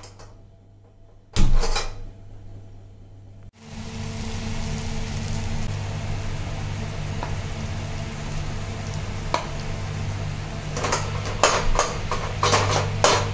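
A gas-stove burner knob turned with a sharp click, then a wok of onion-tomato masala sizzling steadily as cooked rice goes in to fry. Near the end a metal spatula clatters and scrapes against the wok as the rice is stirred.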